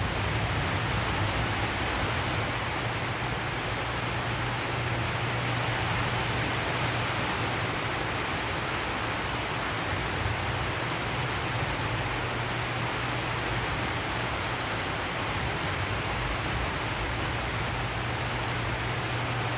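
Steady rain falling on a zinc sheet roof, an even hiss with a constant low rumble underneath.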